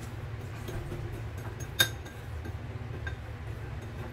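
One sharp clink against a ceramic bowl about two seconds in, as olive oil is poured into it from a glass bottle, over a steady low hum.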